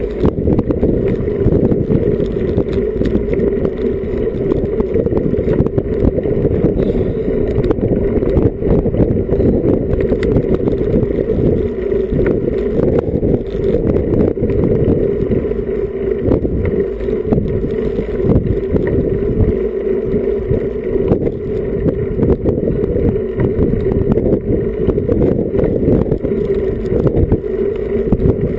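Steady rumbling wind noise buffeting the microphone of an action camera mounted on a moving road bicycle, mixed with rolling road noise.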